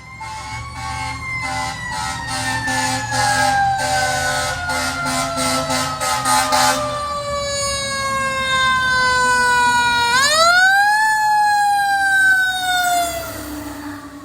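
Fire truck siren with a slowly falling wail, the pitch sliding down steadily like a mechanical siren coasting. For the first seven seconds it is joined by pulsed horn blasts about twice a second. About ten seconds in, the siren sweeps sharply back up, then winds down again and fades near the end.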